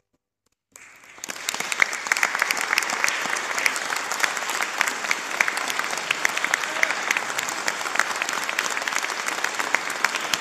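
Audience applause that breaks out about a second in, right after the last chord has faded to silence, and then holds steady.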